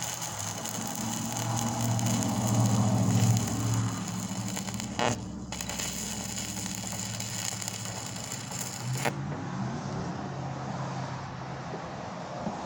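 Stick-welding arc crackling and hissing as an E6013 3/32-inch rod burns at 45 amps DC electrode positive on thin mild steel tubing, over a steady low hum. The arc breaks off for a moment about five seconds in, then goes out at about nine seconds, leaving the hum.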